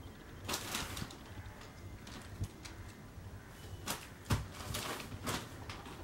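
A scattered series of light knocks and clicks, the loudest about four seconds in, over a quiet background with no bird call.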